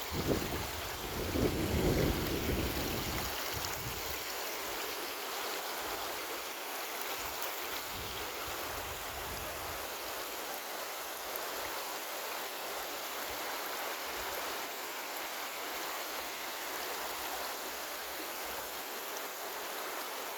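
Running water of a stream, a steady rushing hiss. For the first few seconds wind buffets the microphone with low rumbling gusts.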